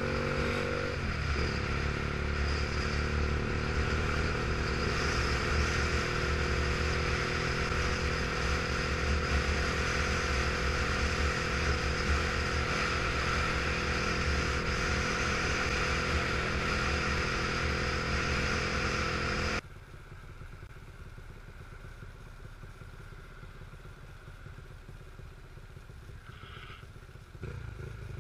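Motorcycle engine running at cruising speed with wind noise across the microphone, its revs rising briefly at the start. About two-thirds of the way in, the sound drops suddenly to a much quieter low engine sound, as at idle while stopped in traffic.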